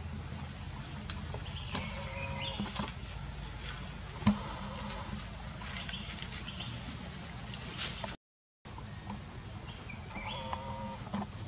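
Outdoor ambience: a steady high-pitched insect drone over a low hum, with three short squeaky calls and one sharp tap about four seconds in. The sound cuts out for a moment just past eight seconds.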